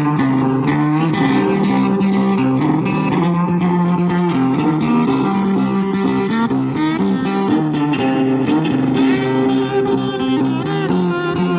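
Background music led by guitar, with a bass line and a steady beat.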